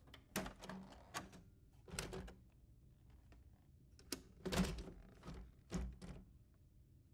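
Hard plastic clicks and knocks from a Lexmark XM1242 laser printer: the front door is unlatched and swung open, then the toner cartridge and imaging unit inside are gripped and unlatched. About eight separate clicks, the loudest knock about four and a half seconds in.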